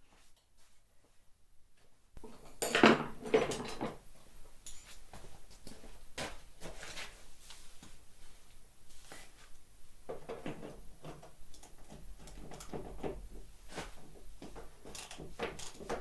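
Metal tools and parts clattering and knocking as they are handled, with one loud clatter about three seconds in and irregular clinks and knocks after it.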